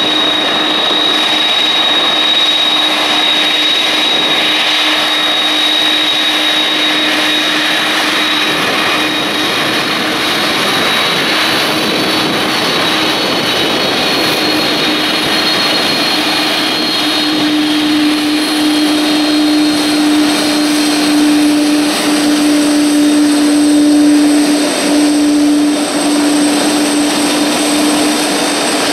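Jet airliner's turbofan engines running loud and steady close by, with a high fan whine that fades after about twelve seconds and a lower hum that grows stronger in the second half.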